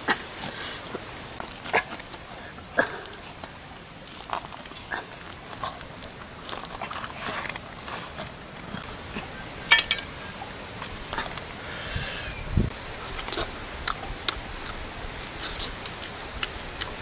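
Insects buzzing steadily at a high pitch, with a higher layer of the buzz dropping out for several seconds midway. Scattered short clicks and snaps come from the spiky durian husk being pulled apart and the flesh handled.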